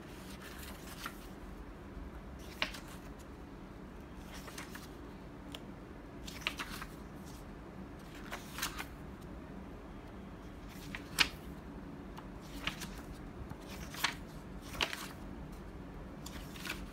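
Pages of a paper planner being turned and smoothed by hand: a string of short paper rustles and flicks at uneven intervals, the sharpest about eleven seconds in.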